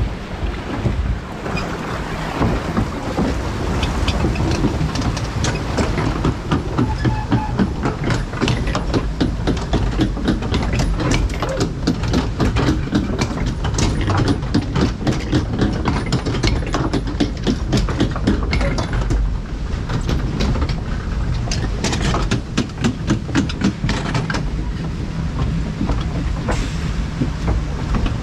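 Log flume boat riding the lift: a fast, dense run of mechanical clicks and clatter over a low rumble, which eases off near the end.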